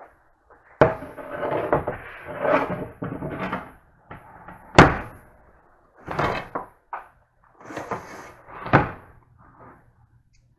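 Kitchen clatter as a hot cast iron grill pan is handled out of the oven and set down on a smooth-top electric stove: a run of knocks and clunks, with one sharp bang a little under five seconds in.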